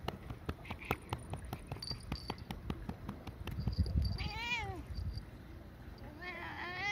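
Tabby cat growling, letting out two drawn-out, moaning cries that rise and then fall in pitch, one about four seconds in and a longer one near the end. These are the grumbling sounds of an irritated cat.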